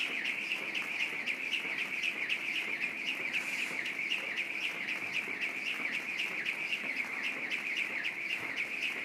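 Jump rope whirring through the air and ticking against the gym floor on every turn, in a fast, even rhythm of continuous skipping.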